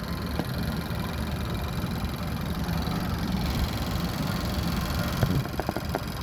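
Car engine idling steadily, with a few light clicks of hands working near the battery about five seconds in.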